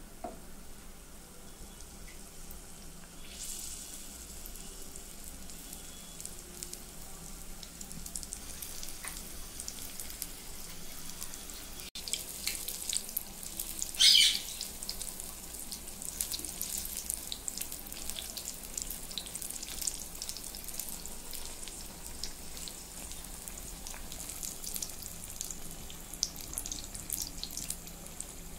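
Batter-coated green chillies (mirchi bajji) deep-frying in hot oil: a steady crackling sizzle that thickens a few seconds in, with one loud, short surge of sizzling about halfway through.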